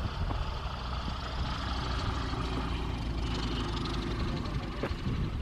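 An engine running steadily at a low, even level.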